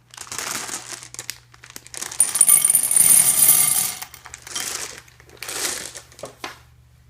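A plastic bag of peanut M&Ms crinkling as it is handled, loudest in a stretch from about two to four seconds in, with shorter rustles after.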